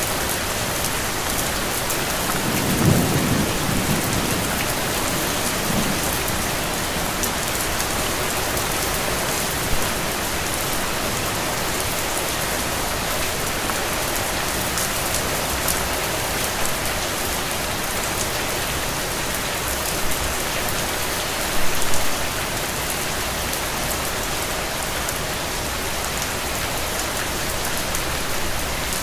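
Steady rain falling, an even hiss with scattered drops, with a low rumble of thunder about three seconds in.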